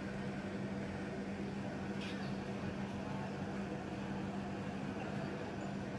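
Steady mechanical hum with one strong, unchanging low tone under a faint wash of noise, heard from inside a closed room.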